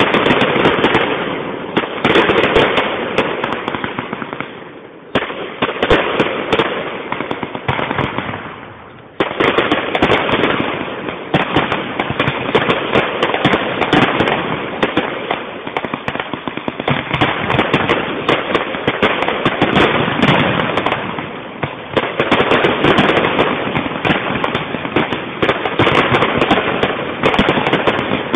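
Fireworks display: a dense, continuous barrage of bangs and crackling from aerial shells bursting, with brief lulls about five and nine seconds in.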